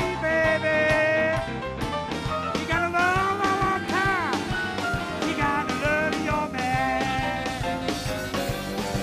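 Live rock band playing, with drums keeping a steady beat under keyboards and a lead line with bending pitches.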